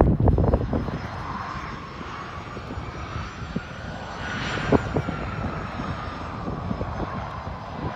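Business jet's rear-mounted turbofans whining as it passes along the runway, the whine rising in pitch to about halfway through and then falling as it goes by, over a steady low rumble. Wind buffets the microphone at first.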